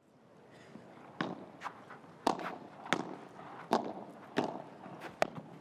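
Padel rally: the ball being struck by solid paddle rackets and bouncing, a string of sharp pops about one every half to three-quarters of a second, starting about a second in.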